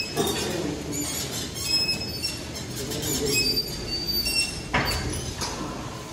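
Metal gym equipment squeaking in short, high squeals about once a second as it is worked through repetitions, with one sharp metallic clank near the end.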